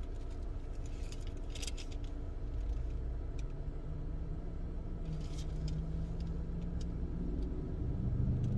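Printed paper pages rustling and crinkling as they are handled and leafed through, in short bursts about two and five seconds in, over a steady low rumble in a car cabin.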